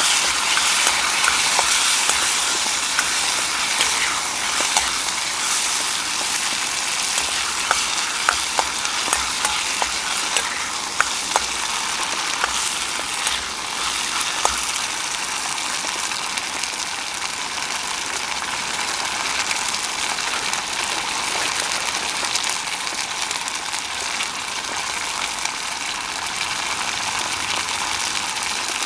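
Food sizzling steadily in a hot iron wok, loudest in the first couple of seconds. Scattered clicks and knocks, likely a utensil on the wok, fall over the first half.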